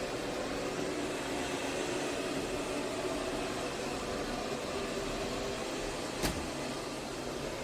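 MAMNV robot vacuum and mop running with a steady motor hum, with one sharp click about six seconds in.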